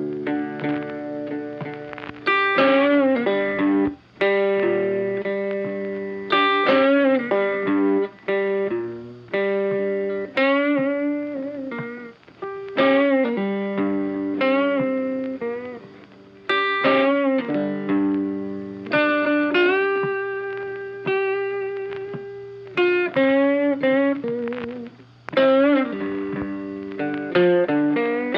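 Background music: a guitar plays a melody of plucked notes, some held with a wavering pitch.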